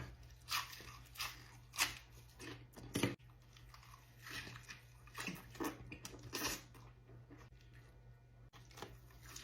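A person biting into and chewing a big multi-patty cheeseburger dressed with cheese sauce and ketchup: irregular chewing sounds, closest together in the first three seconds and then coming more sparsely.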